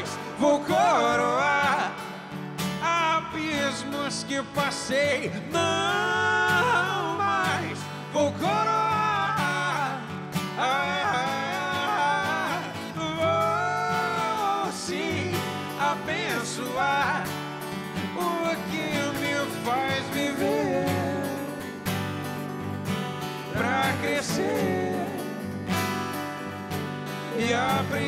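Live acoustic music: two steel-string acoustic guitars strumming while a male voice sings a gliding melody over them.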